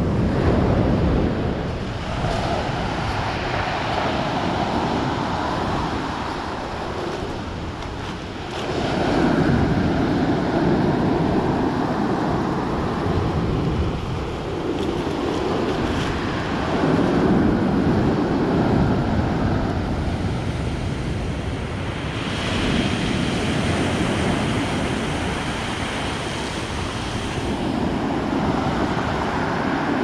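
Rough sea surf breaking and washing up a pebble beach, swelling and easing in surges every few seconds. Wind buffets the microphone throughout, adding a low rumble.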